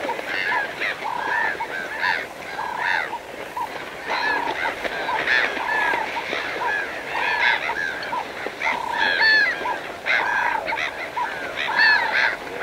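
A group of birds calling over and over, with several short arching calls overlapping, about two a second.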